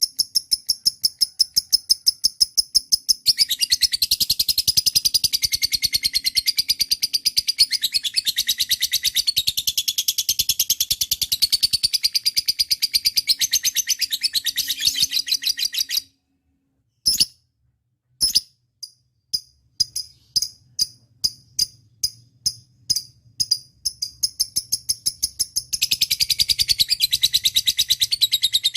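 Lovebird calling: a rapid run of sharp, high chirps, several a second, that breaks into long stretches of continuous shrill chattering. The calling stops for a moment about halfway through, then resumes as spaced chirps and builds back into chatter near the end.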